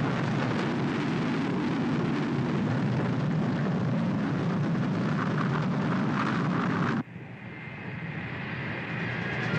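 Jet aircraft engines at full power on a takeoff run, a loud steady rush that cuts off suddenly about seven seconds in. Faint music then fades in and grows louder near the end.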